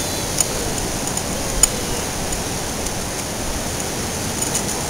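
Steady rushing noise of ocean surf, with a few light clicks over it.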